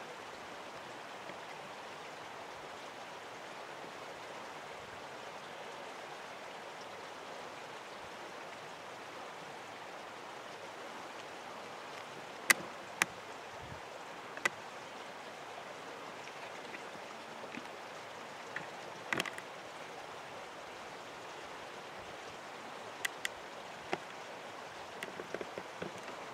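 A steady, even rushing hiss, like running water, with a handful of sharp clicks and ticks scattered through the second half, the loudest about twelve seconds in.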